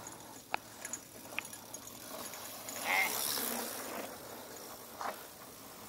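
Mountain bike rolling along a dirt trail: a high buzzing hiss with a few sharp clicks and rattles, loudest around the middle.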